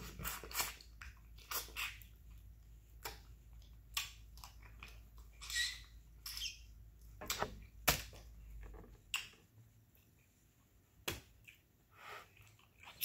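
Eating snow crab up close: irregular wet lip smacks, mouth clicks and chewing as crab meat is sucked and bitten from the shell, with quiet gaps between.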